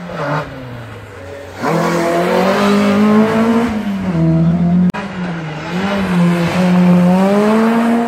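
Rally car engines at high revs. A fainter engine falls away in pitch, then about a second and a half in a loud engine climbs and drops in pitch through gear changes; it breaks off abruptly about five seconds in and another rally car's engine takes over, revving up and down.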